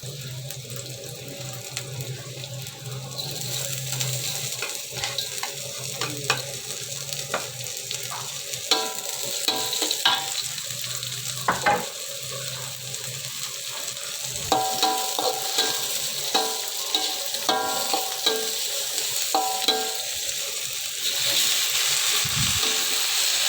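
Sambal sizzling as it is stir-fried in hot oil in a pan, stirred with a spatula that clicks and scrapes against the pan. The sizzle grows louder after a few seconds.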